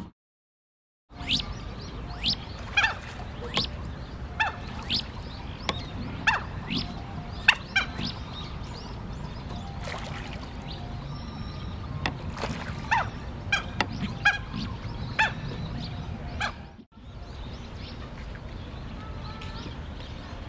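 Mandarin ducks calling: short, high whistles, each falling steeply in pitch, repeated irregularly about once or twice a second over low background noise. The calls start about a second in and thin out after a brief drop-out late on.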